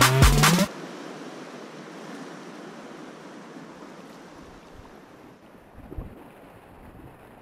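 Music with a strong beat for the first moment, cutting off suddenly; then the steady rush of whitewater as a kayak drops over the falls and plunges through the foam, with a few low thumps of water about six seconds in.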